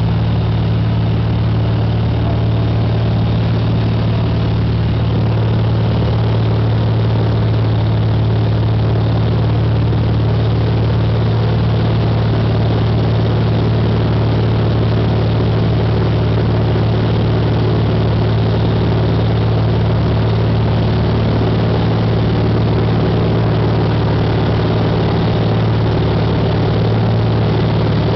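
Single-engine light airplane's piston engine and propeller droning steadily, heard from inside the cockpit.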